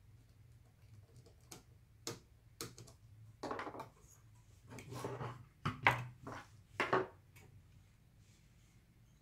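Irregular knocks, clicks and short scrapes as a graphics card is handled, turned over and set down on a wooden desk, its metal-and-plastic shroud and heatsink clattering; the loudest knocks come a little before and after the middle. A steady low hum runs underneath.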